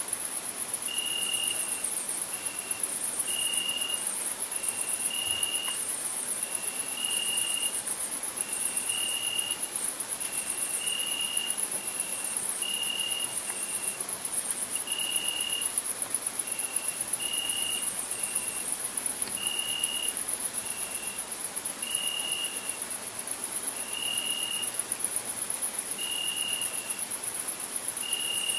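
Crickets chirring in a continuous, very high, finely pulsing chorus. Beneath it, a series of short clear piping notes repeats about once a second, alternating between two slightly different pitches.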